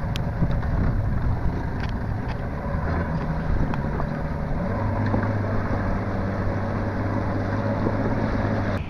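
Evinrude outboard motor running on a dive RIB, a steady engine note whose pitch steps down about halfway through as the throttle changes, with wind buffeting the microphone.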